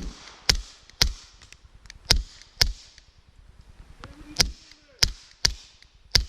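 Suppressed 9mm pistol shots, Browning 147-grain rounds fired from a Sig Sauer P226R through a SilencerCo Osprey .45 suppressor. Nine sharp shots come in uneven groups: three quick ones, a pair, then four more near the end.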